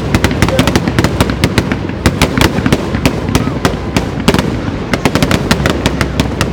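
Aerial fireworks display: a fast, irregular crackle of sharp bangs and pops, several a second, over a steady low rumble of bursting shells.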